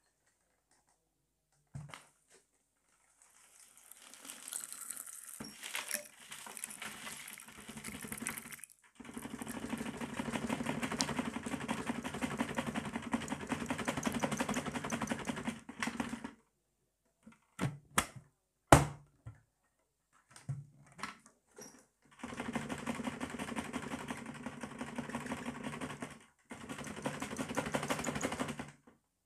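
Dyson vacuum running through its hose in several bursts of a few seconds each. Crunchy debris of seeds, grit and glitter rattles and crackles up the hose in a dense, rapid clicking over the motor's steady hum. The suction starts and stops abruptly, and between bursts there are a few separate sharp clicks and knocks, one of them loud.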